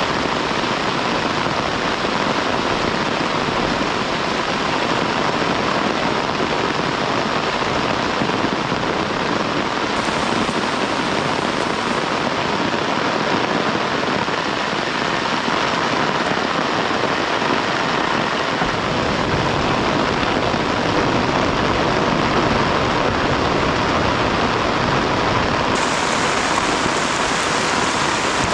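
Steady heavy rain, an even hiss, with a few abrupt shifts in its tone.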